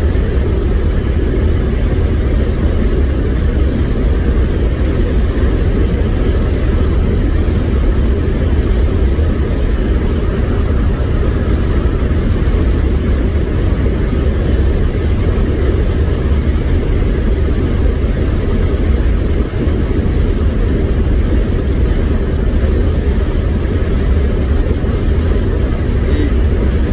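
1987 Chevrolet Caprice cruising at highway speed: a steady low engine and road drone heard from inside the cabin.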